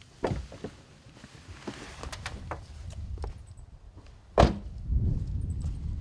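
A car's rear side door slammed shut with one loud thunk about four and a half seconds in, amid smaller knocks and rustling as the child climbs out.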